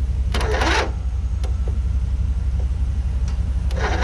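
An aerosol can hissing in two short sprays into a riding mower's engine intake, one about a third of a second in and another starting near the end, over a steady low engine idle.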